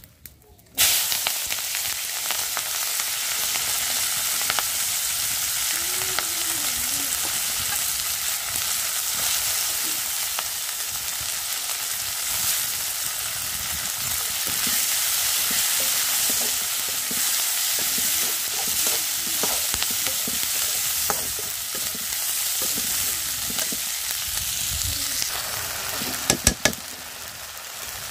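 Sliced onions and green chillies go into smoking-hot oil in an iron karai and start frying with a sudden, loud, steady sizzle. Near the end the sizzle softens and a few sharp clicks stand out.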